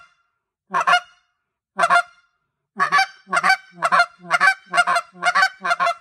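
Short reed goose call blown in sharp clucks. Two single clucks come about a second apart, then from about three seconds in a quick run of clucks in close pairs.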